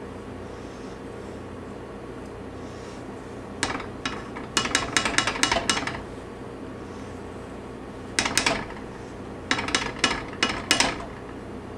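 Rubber spatula knocking and scraping against a stainless steel saucepan as peanut butter is scraped off into it. The clicks come in quick clusters: one starting about four seconds in, a short one around eight seconds, and another just before the end.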